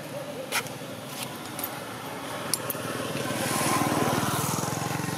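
A small engine running by, growing louder through the second half and peaking about four seconds in, with a couple of sharp clicks before it.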